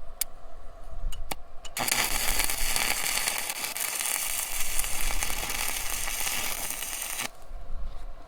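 Electric arc welder crackling for about five seconds, starting about two seconds in and cutting off sharply, after a few short clicks. A washer is being welded onto a twisted-off bolt stub in an engine water jacket so that the stub can be turned out.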